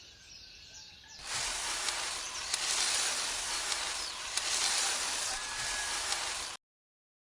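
Faint bird chirps, then about a second in a loud, steady hiss starts, with a few small clicks in it, and cuts off abruptly near the end.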